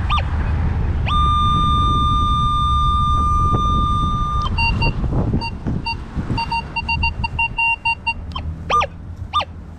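Minelab Vanquish metal detector sounding over a buried coin: a long steady beep, then a run of short beeps that quicken, then two brief chirps near the end. A low rumble sits underneath in the first half.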